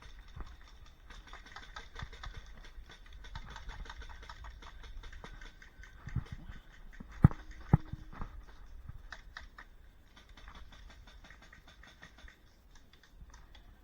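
Rustling with many light clicks, and two sharp knocks about half a second apart near the middle.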